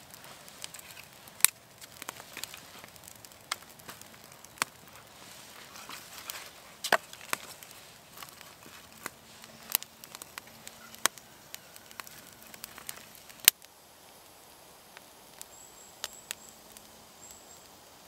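Small wood campfire of kindling crackling, with sharp irregular pops and snaps from the burning sticks. The popping stops about three-quarters of the way through, leaving only faint background.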